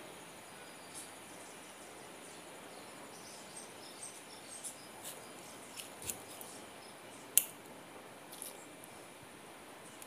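Scattered small clicks and ticks of electrical wires and tools being handled, with one sharper click a little past halfway, over a steady faint high-pitched insect trill.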